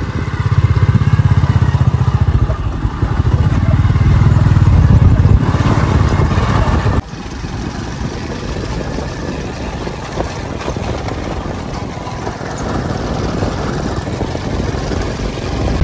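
Motorcycle engine running under way, a fast low pulsing under steady noise. About seven seconds in, the loudness drops suddenly and the engine goes on at a lower, steady level.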